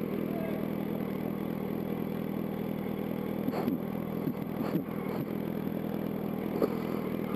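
Yamaha R1 inline-four engine running steadily at low revs, idling and then pulling the bike gently through a turn, with a few light clicks about halfway through.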